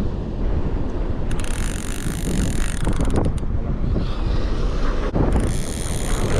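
Wind buffeting the microphone on an open beach, with surf behind it. Twice a high, fine buzz cuts in, once for about two seconds and once for under a second.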